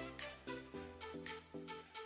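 Background music with a steady beat: an upbeat instrumental with plucked or struck pitched notes.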